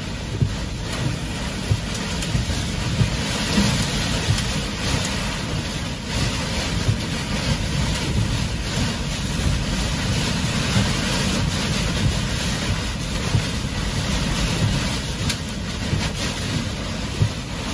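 Derecho winds and heavy rain beating on a car, heard from inside the cabin: a loud, steady rush of rain on the windshield and body with low buffeting rumbles and frequent irregular sharp knocks as gusts and rain slam the car.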